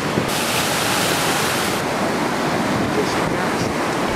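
Rough sea rushing and breaking around the bow of a square-rigged sailing ship under way, with wind. A brighter hiss comes in about a third of a second in and lasts over a second.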